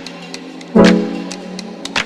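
Background music: a guitar chord strummed about a second in that rings out and fades, over light percussive ticks.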